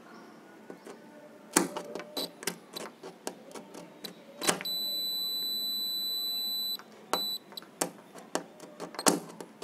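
Digital multimeter's continuity buzzer sounding one steady high beep for about two seconds, then a short second beep, as the test probes scrape and tap against a solar panel's metal frame. The beep shows current passes through the frame where its plastic coating has been scraped off.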